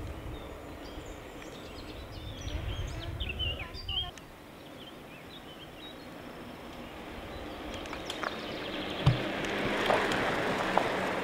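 Wind rumble on the microphone with birds chirping over it, then, after about four seconds, the rolling tyre noise of a kick scooter (footbike) on asphalt, swelling as it passes close near the end, with a sharp knock about nine seconds in.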